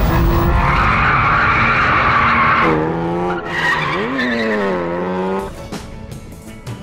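Car tyres squealing for a couple of seconds, then a car engine revving, its pitch climbing sharply and falling again before it fades out near the end.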